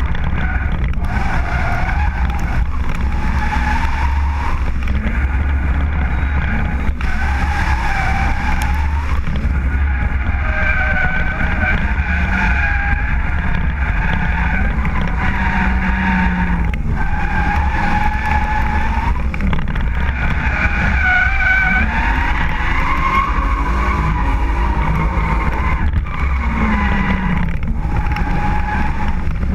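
BMW drift car's engine revving up and down while its rear tyres squeal through long, wavering slides, heard from a camera mounted on the outside of the car over a heavy low rumble.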